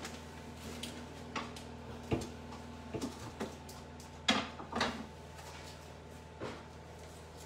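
Scattered light knocks and clicks of kitchen items being handled, about seven over a few seconds, the loudest about four seconds in, over a steady low hum.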